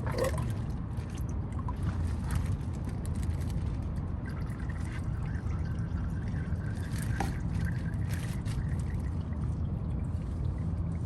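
Warm engine oil pouring and dribbling out as the oil filter is unscrewed, over a steady low rumble, with a few small clicks.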